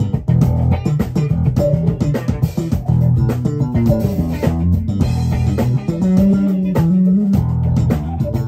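Electric bass guitar playing a live jazz-funk line out front of the band: a run of quick plucked notes, then one note held for about a second and a half around six seconds in.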